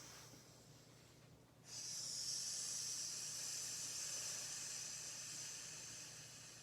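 A woman hissing like a cobra on one long out-breath. It starts about two seconds in after a quiet in-breath, and slowly fades away.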